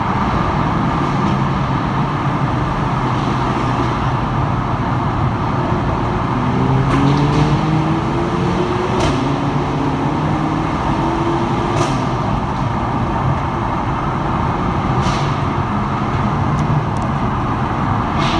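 Cars accelerating hard through a road tunnel, heard from inside a following car: steady engine and road noise, with an engine climbing in pitch through several gear changes in the middle. A handful of sharp pops come through it, scattered a few seconds apart.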